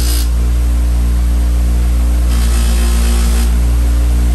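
Electric bench buffer motor running with a steady hum, its cloth buffing wheel spinning. A steel knife blade is pressed against the wheel at the very start and again for about a second just past halfway, each time adding a hiss.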